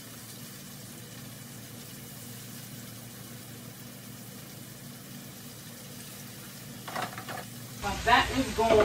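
Oil sizzling steadily in an electric deep fryer as battered tilapia fries. Near the end there is a clatter of kitchen things and a voice.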